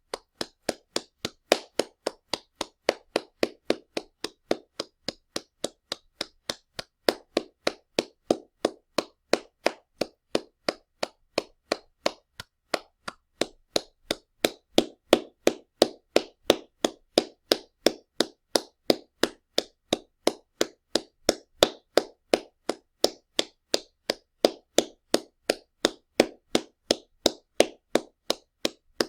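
Hands clapping loudly in a steady, even rhythm of about three claps a second, with a brief break about midway.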